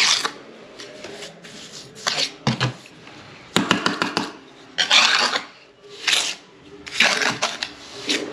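Hand trowel scraping and tapping as sand-and-cement mortar is scooped and packed into the hole around a shower waste trap on a concrete floor, in irregular strokes about every second.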